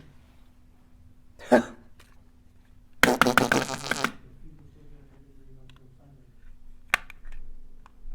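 Handling noise of hard objects: a knock, then a rattle of rapid clicks lasting about a second, and a couple of single sharp clicks near the end.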